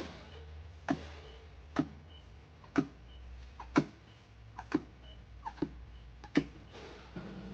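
A series of sharp knocks or taps, about one a second, some in quick pairs, over a steady low hum.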